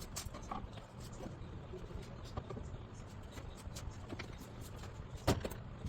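Steady low background rumble with scattered small clicks and taps, then one sharper knock a little past five seconds in: a test weight being set down on a commercial scale's platter while its calibration is checked.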